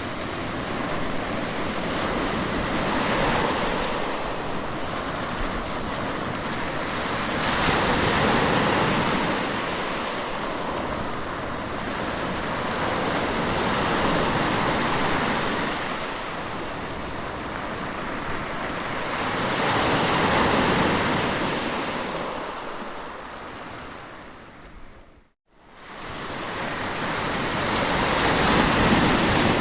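Sea waves washing onto the shore, swelling and ebbing about every five to six seconds. The sound fades out to silence a few seconds before the end, then swells back in.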